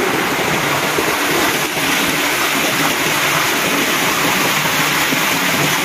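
Creek water flowing steadily, a constant rushing hiss.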